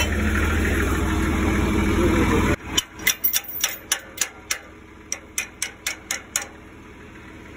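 A tractor engine idling steadily, cut off abruptly about two and a half seconds in. It is followed by a run of about a dozen sharp metal clicks, roughly three a second, as a handle is worked in the socket of a rusty implement jack.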